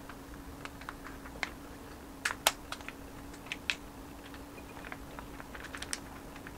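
Light, irregular clicks and taps of hands wrapping a dumpling in rice paper on a ceramic plate, the paper crackling and fingers knocking the plate. The loudest clicks come a little over two seconds in, over a faint steady hum.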